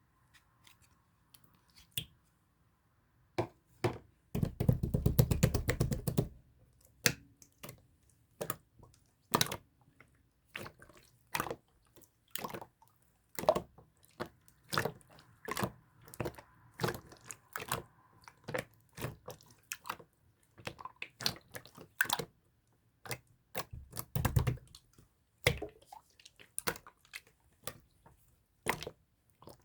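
Clear slime being pressed and stretched by hand, making irregular sticky pops and clicks, with a fast run of crackling squelches about four to six seconds in and another thick squelch near twenty-four seconds.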